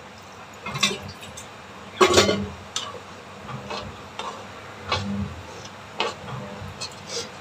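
A steel spoon stirring liver pieces in watery masala in a metal kadai, scraping and knocking against the pan in irregular strokes, the loudest about two seconds in.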